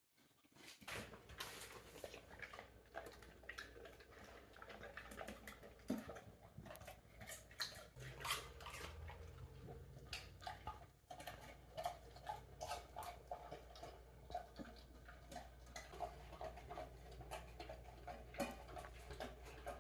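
A dog chewing and smacking on pieces of fruit: a quiet, irregular run of wet clicks and crunches over a low background hum.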